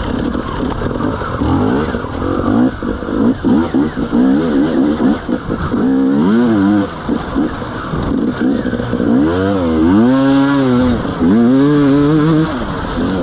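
Off-road motorcycle engine being worked hard. It sounds choppy and irregular in the first half, then is revved in sharp bursts whose pitch rises and falls, the strongest about six, ten and twelve seconds in.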